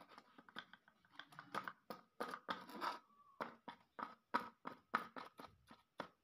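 Plastic toys being handled and moved over sandy ground: a run of irregular crunching clicks and scrapes, several a second.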